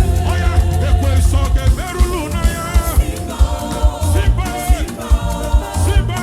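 Live gospel praise music: a band with heavy bass and a steady drum beat under wavering, melismatic singing.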